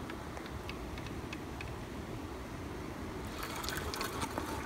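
River ambience heard from a small boat: a steady low rumble with faint scattered ticks, and a short cluster of crackling clicks about three and a half seconds in as a hooked catfish is brought toward the boat.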